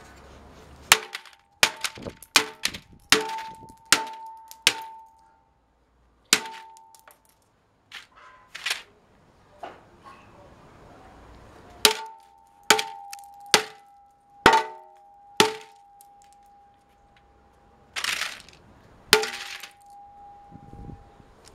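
A computer keyboard being smashed on concrete with repeated heavy blows, each a sharp crack followed by a metallic clang that rings on. The blows come in two quick runs of about six to eight, with a few single blows between and after.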